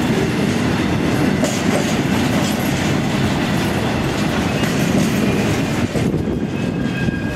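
Freight train of covered bogie hopper wagons rolling past: a steady rumble with wheels clattering over the rail joints. The noise eases slightly about six seconds in, as the last wagon goes by.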